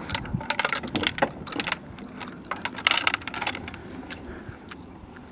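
Irregular clicking and rattling of small hard objects being handled, thickest in the first second and again about three seconds in.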